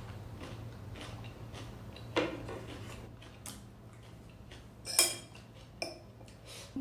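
A metal spoon clinks sharply against a ceramic bowl about five seconds in, among soft eating sounds and small clicks of tableware, over a low steady hum.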